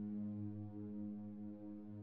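Calm ambient background music of held, droning chords.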